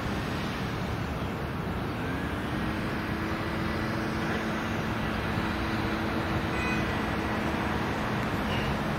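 Diesel engines of CSX freight locomotives approaching, a steady rumble whose low drone rises in pitch about two seconds in and then holds, mixed with road traffic noise.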